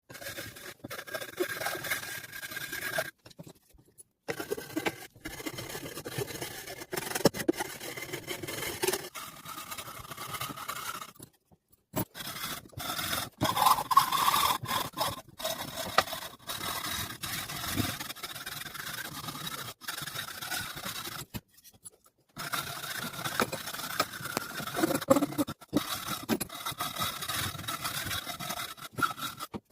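Scraping and rasping of hand tools working the wood of an axe handle, in a series of edited stretches broken by short silences.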